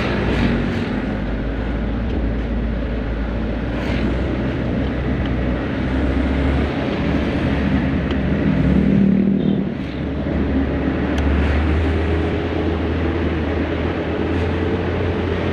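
Tuned vehicle engine running steadily with a deep hum, a little louder about nine seconds in.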